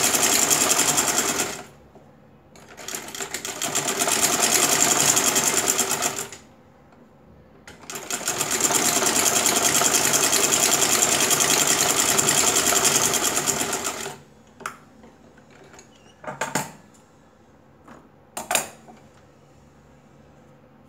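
Sewing machine stitching fast in three runs with short pauses between them, the last run the longest, then a few sharp clicks. It is sewing a second, reinforcing line of stitches along a trouser seam.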